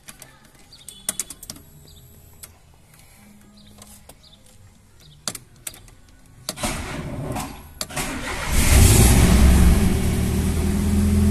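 Volkswagen Gol being started with a broken key: a few scattered clicks, then the starter cranks for about a second and a half before the engine catches about eight and a half seconds in, revs and settles into a steady idle.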